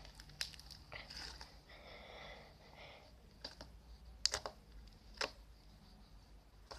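Pink slime squeezed and stretched between fingers, giving irregular sticky clicks and crackles, the sharpest a little over four seconds in.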